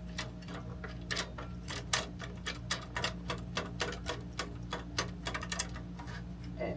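Rapid metallic clicking while the miter saw's blade arbor bolt is worked loose: scattered clicks at first, then a quick, even run of about three to four clicks a second, which stops near the end. A steady low hum runs underneath.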